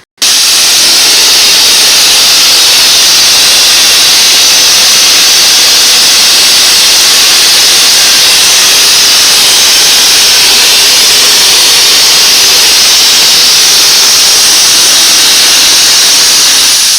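Cotton-fibre spray machine's nozzle blasting compressed air with a loud, steady hiss that starts abruptly.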